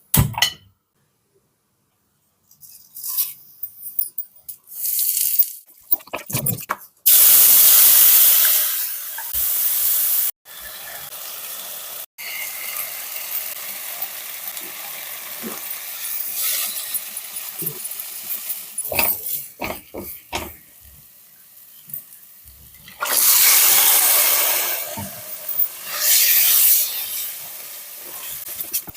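Kitchen cooking sounds: loud hissing that starts suddenly and fades in two long stretches, with a quieter hiss between them and scattered clicks and knocks of utensils.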